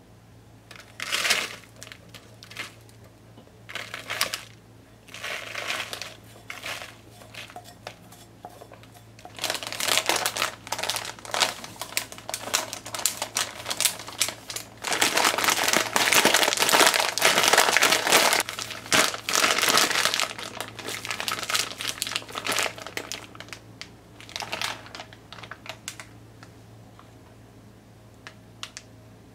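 Plastic zip bag crinkling as crumbly ramen noodle dough is packed into it and kneaded through the plastic. A few short rustles come first, then about ten seconds of dense, continuous crinkling, which thins out near the end.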